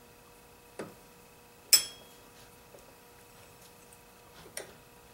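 Three sharp metal clicks and clinks of a wrench being fitted and turned on a chainsaw's left-hand-threaded nut. The loudest comes about two seconds in and rings briefly.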